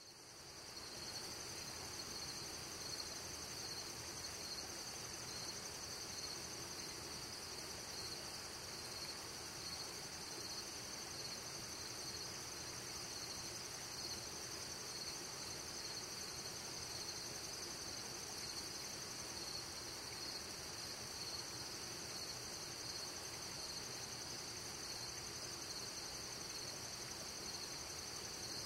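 Steady chorus of crickets and other night insects trilling, high and unbroken, fading in over the first second.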